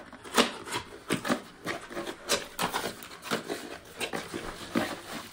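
Irregular crinkling and clicking of packaging as a boxed item is handled and opened, about two or three sharp crackles a second.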